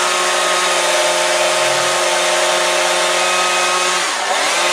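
Chainsaw running at full speed as it cuts a small log, easing off with a falling pitch about four seconds in and then speeding up again.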